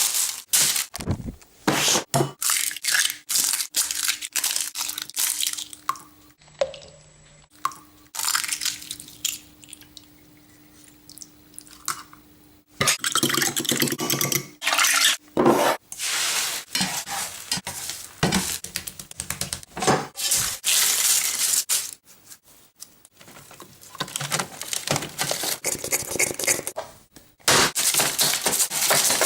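Hard objects clattering, knocking and scraping in quick, irregular bursts, with a quieter stretch near the middle where a faint steady hum is heard.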